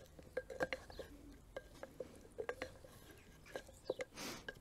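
Wooden spoon stirring stew in an unglazed ceramic cooking jar, tapping irregularly against the pot's wall in light, briefly ringing knocks. A short soft hiss comes near the end.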